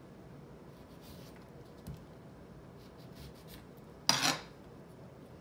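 Serrated kitchen knife cutting into a whole lemon's rind: mostly faint, with one short, loud rasp about four seconds in.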